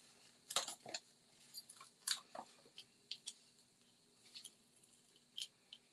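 Foam adhesive dimensionals being peeled from their paper backing sheet and pressed onto cardstock: faint, irregular crackles and paper rustles, the strongest about half a second to a second in and again at about two seconds.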